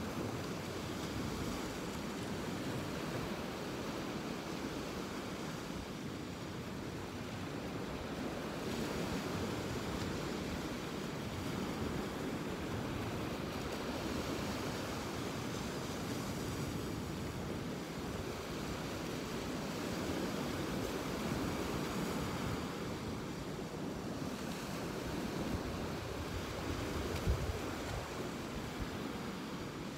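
Ocean surf washing onto the beach: a steady rush of waves that swells and eases, with some wind on the microphone. One brief low thump near the end.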